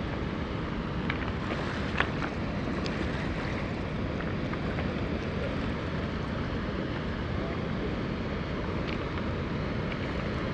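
Steady rush of fast-flowing river water below a dam, with wind on the microphone. A few faint clicks over it, the sharpest about two seconds in.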